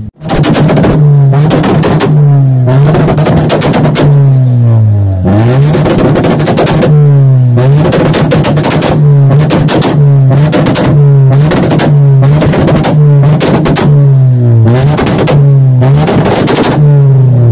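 Car engine revved hard over and over through a bare single exhaust pipe, about once a second, each rev sagging in pitch before the next, with crackling from the exhaust. It cuts in abruptly at the start.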